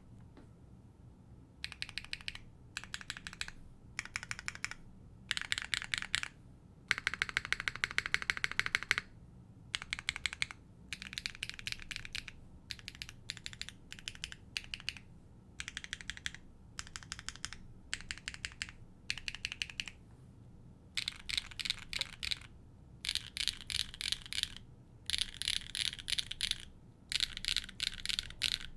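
Typing on a Neo65 mechanical keyboard with an aluminium plate and HMX Saru V2 switches: bursts of rapid keystrokes separated by short pauses.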